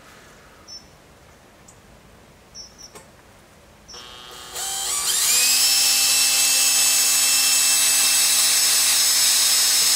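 Cordless drill fitted with a hole saw, started about four seconds in: it speeds up with a rising whine, then runs steadily at full speed while its bit cuts a small starting indent into the steel beam.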